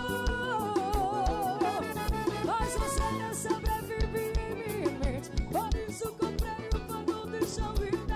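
Live forró band playing: an accordion-led melody over electric guitar, bass and a steady drum beat.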